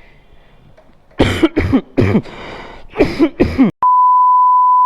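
A man coughing hard in three fits, a dry cough from a sore, raw throat during a bout of illness. Near the end a steady one-tone bleep cuts in.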